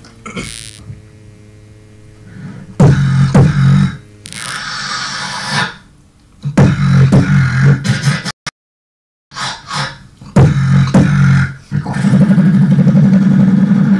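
Beatboxing into a handheld microphone: bass-heavy kicks and vocal drum sounds with sharp hits, broken by short pauses. It starts after about three quiet seconds, cuts out completely for under a second about halfway through, and ends with a long held bass sound.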